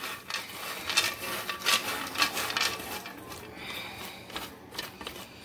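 Pumpkin seeds being stirred while they dry-toast, with irregular scraping strokes and the dry rattle and clicking of the seeds being moved around.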